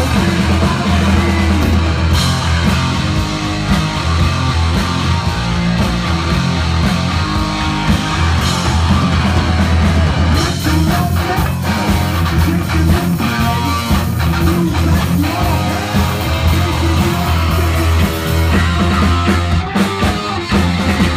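Heavy metal band playing live: amplified electric guitar and a drum kit playing continuously and loud.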